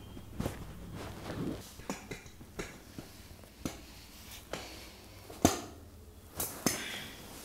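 Handling sounds of a chiropractic thoracic adjustment on a padded treatment table: scattered short clicks and knocks, the loudest about five and a half seconds in and another strong one about a second later.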